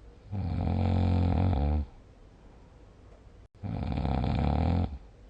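A person snoring in sleep: two long snores, each about a second and a half, a couple of seconds apart, with a quieter breath between them.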